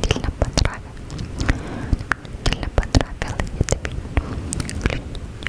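Unintelligible whispering close to the microphone, mixed with many sharp wet mouth clicks.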